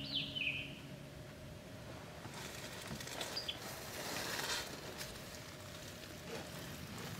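A bird chirps briefly at the start. Then there is faint rustling and scraping for a few seconds, louder about four seconds in, as a person tries to squeeze into the wooden mesh-walled snake trap.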